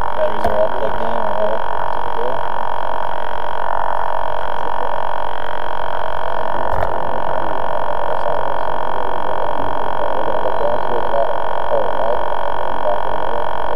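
Drone's electric motors and propellers running with a steady, unchanging whine of several tones, heard close up from the drone's own camera.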